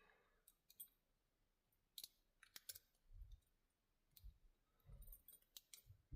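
Faint, scattered clicks of a short hook pick working the pins inside a Brinks 5-pin padlock, with a few dull low knocks in between.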